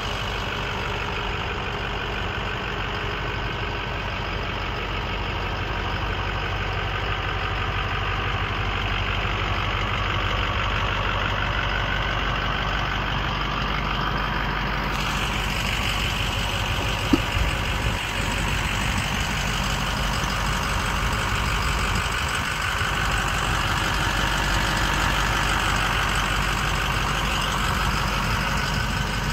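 Ford 6.0 Power Stroke V8 turbo-diesel idling steadily, a low even drone. A single sharp click comes about seventeen seconds in.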